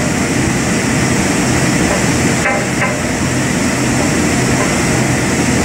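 Steady, loud machinery drone with a constant low hum, and two light metallic clicks about halfway through from a hex key working the set screws of a shaft flange bearing.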